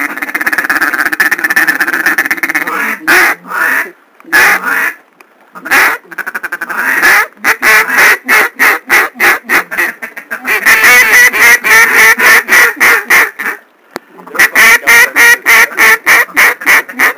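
Duck call blown hard and close: a long raspy call, then several strings of quick, evenly spaced quacks about five a second.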